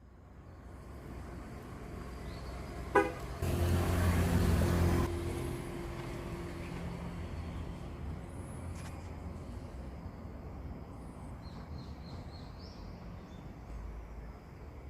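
A car comes closer and sounds its horn: a short sharp toot about three seconds in, then a louder horn blast lasting about a second and a half. After that its engine noise carries on steadily and slowly fades.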